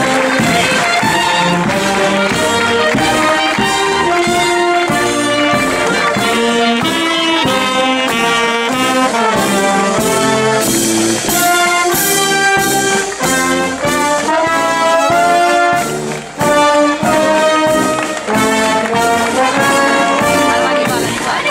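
Wind band playing, with trumpets and trombones carrying the melody over a steady drum beat.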